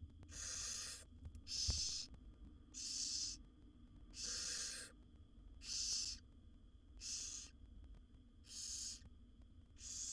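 Barn owl nestlings giving their rasping, hissing begging calls, one hiss about every second, over and over: the food-begging call of chicks in the nest.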